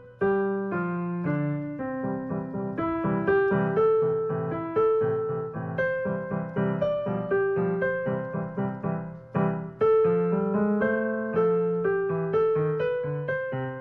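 Piano music: a melody of struck notes over lower chords, each note starting sharply and fading away.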